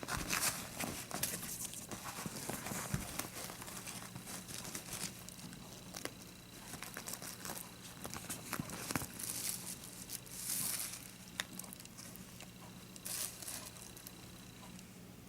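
Irregular crinkling and tearing rustles from something being handled, broken by scattered sharp clicks, with two louder bursts about ten and thirteen seconds in.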